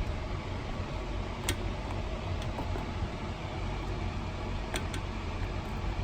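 A steady low mechanical hum with a few sharp light clicks, one about a second and a half in and two close together near five seconds.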